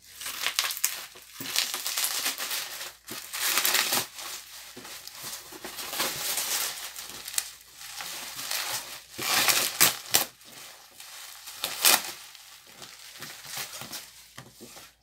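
Plastic bubble wrap being pulled off and crumpled around a cardboard box: irregular rustling and crackling with a few sharper, louder crackles.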